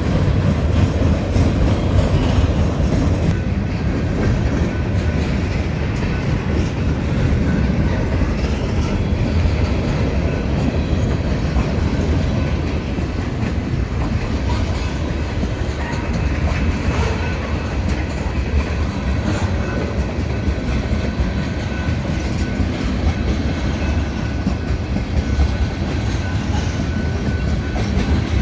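Freight cars rolling past at a grade crossing: a steady rumble with wheels clacking over the rail joints.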